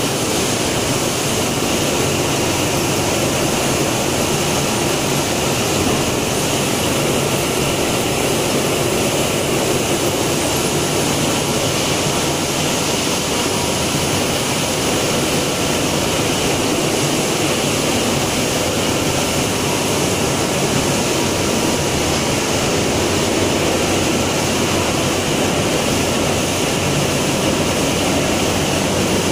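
Machinery of an organic fertilizer pellet production line running: a steady, unchanging mechanical din from motors, conveyors and a rotary drum screen, with a faint thin whine.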